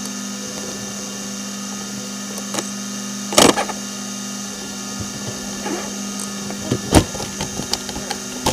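A steady mechanical hum made of several fixed tones, broken by a sharp knock a few seconds in, another later, and a scatter of light clicks near the end.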